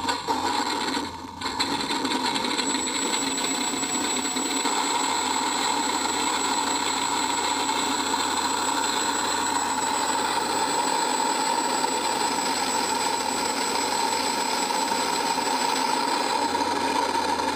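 Electronic engine-sound card in a Dynam Catalina PBY RC model playing a simulated twin piston-engine drone through its onboard speaker, along with the electric motors spinning both propellers. It cuts in suddenly, dips briefly about a second in, then runs steadily.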